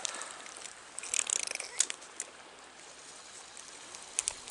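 Steady rush of running river water, with a few short sharp ticks about a second in, around two seconds in and again near the end.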